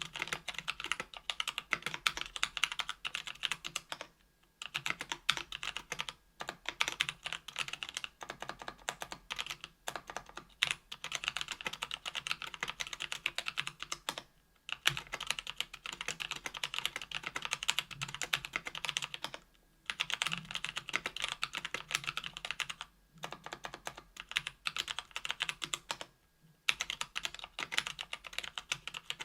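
Typing on a mechanical keyboard with stock Kailh Speed Copper 60 g tactile switches, GMK keycaps, an aluminum plate and an aluminum Tofu 65% case: fast runs of key clacks broken by short pauses every few seconds.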